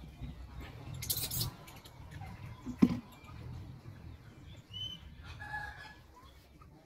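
A macaque handling a plastic water bottle and letting it drop onto a tiled floor: a brief crinkling rustle, then one sharp tap of plastic on tile just before the middle. A few short high calls follow near the end.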